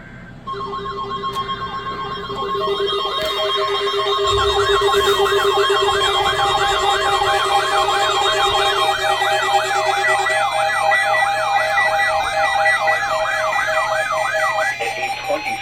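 Several weather alert radios sounding their alarms at once for a new warning: a warbling, siren-like sweep of about three rises a second layered over several steady and beeping alert tones. The tones come in about half a second in, grow louder as more of them join over the next few seconds, and stop shortly before the end.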